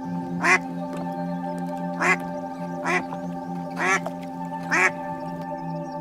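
A duck quacking five short times, over steady background music.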